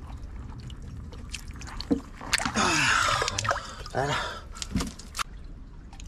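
Water sloshing and splashing as hands grope and grab in a shallow, muddy rock pool, with small clicks and drips and one louder splashy stretch a little before the middle. A few short voice sounds come in about a third of the way through.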